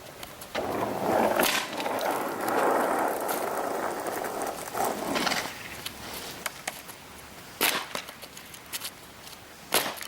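Skateboard wheels rolling over wet pavement for a few seconds, then two sharp wooden clacks of the board hitting the ground, about two seconds apart, near the end.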